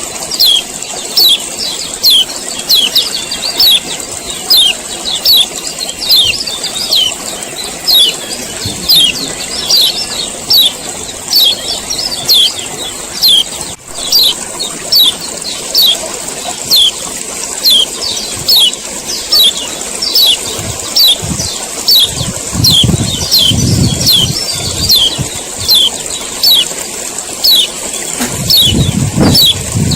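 Male kecial kuning (a Lombok white-eye) giving its harsh 'ciak ciak' call over and over, sharp downward-sweeping chirps nearly two a second, a call used to provoke other birds into singing. A steady high hiss runs underneath, and low rumbles come in now and then near the end.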